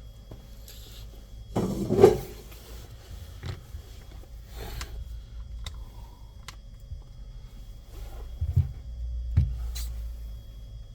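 Scattered clicks and knocks of objects being handled on a work surface, loudest in a short cluster about two seconds in and two dull thumps near the end, over a low steady hum.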